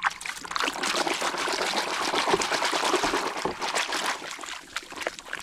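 Water pouring and splashing steadily as toys are washed, easing off near the end.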